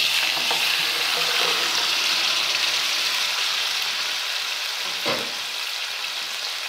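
Raw mutton pieces sizzling loudly in hot oil with whole spices in a steel karahi, just added to the pan and starting to sear. The sizzle eases slowly, with one short louder bump about five seconds in.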